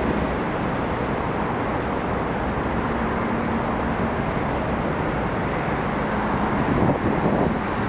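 TU7A narrow-gauge diesel locomotive running light, its diesel engine running steadily as it approaches, a little louder about seven seconds in.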